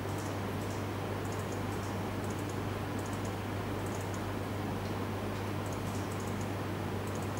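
Faint, irregular computer keyboard typing and clicking over a steady low hum and room hiss.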